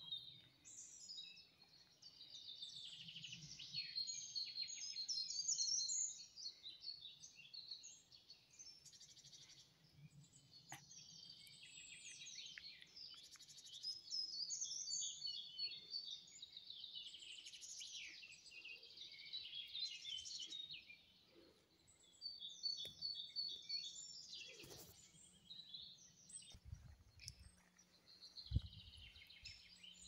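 Several songbirds singing together in woodland: a dense chorus of high chirps and trills that swells and fades in waves, with a few faint low thumps near the end.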